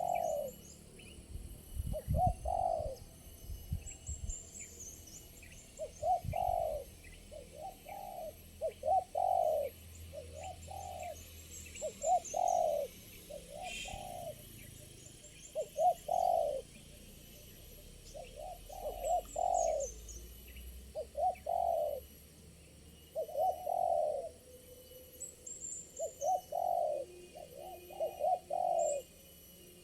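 Spotted doves cooing: short hooked coo notes come in phrases of two to four, repeated every second or two. Small birds chirp faintly and high in the background.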